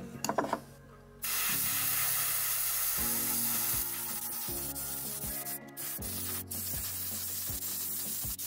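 Airbrush spraying primer onto a small balsa lure body: a steady hiss of air and paint that starts about a second in, a little louder for its first few seconds.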